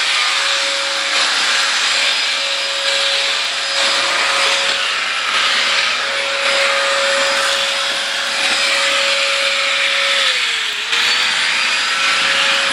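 Vacuum cleaner running steadily with a loud hiss and a steady motor whine. Its pitch dips briefly and recovers about ten and a half seconds in.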